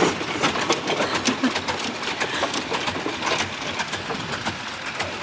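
Steam traction engine on the move, its exhaust beats and working parts clanking in a quick, even rhythm, with a sharp knock at the very start.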